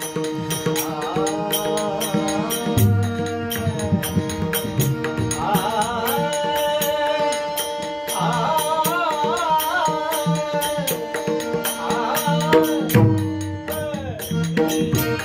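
Marathi devotional bhajan: a male voice sings long held notes with wavering ornaments over a steady drone. Pakhwaj (mridang) drum strokes and a steady run of light percussion strikes keep the rhythm, with deep bass drum strokes near the start and again near the end.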